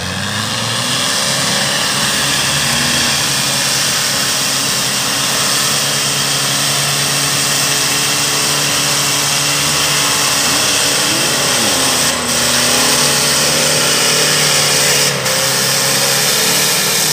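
Off-road buggy engine revving hard under load as it drives through mud, pitch rising at the start and then held high, with a wavering of the revs about two-thirds through and a couple of brief dips.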